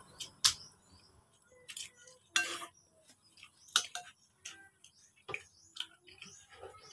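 Scattered short clicks and clinks: a metal spoon tapping and scraping in a ceramic bowl, mixed with close-up mouth smacks and chewing.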